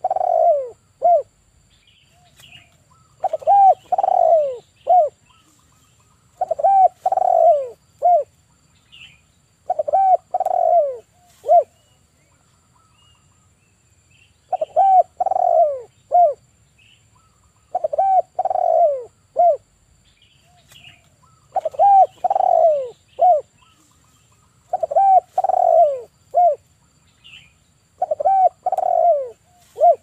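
Male spotted dove cooing in a steady series of phrases, about one every three and a half seconds. Each phrase is a short note, then a longer falling coo, then a clipped final note.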